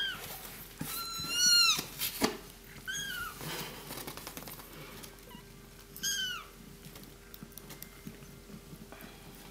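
Three-week-old kittens mewing: thin, high-pitched cries that rise and fall, the longest and loudest about a second in, shorter ones at about three and six seconds, over light rustling of fur and towels as the kittens are handled.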